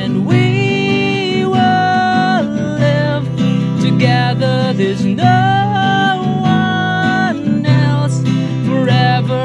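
A man singing a love song in English to his own strummed acoustic guitar, holding long notes at the end of each line.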